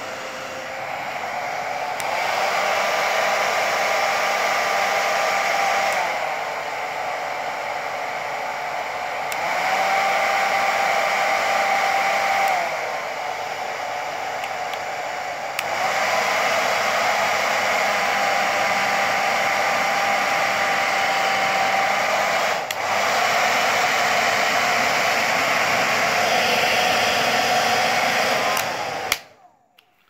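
Wahl pet hair dryer blowing, switched between its settings: the fan noise steps up and down in loudness several times, its faint whine shifting in pitch with each change, and it is switched off near the end.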